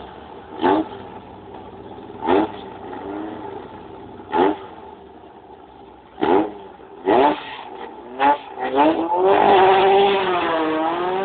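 Volkswagen Beetle drag car's engine blipped in short, sharp revs every second or two at the start line. About nine seconds in it launches and runs at full throttle, its pitch dipping and then climbing again.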